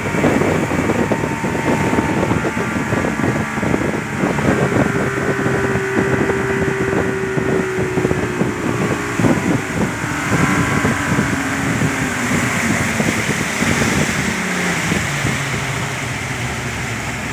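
Speedboat engine running flat out, with water rushing and spraying along the hull and wind on the microphone. The engine note holds steady, then drops slightly in pitch about two-thirds through.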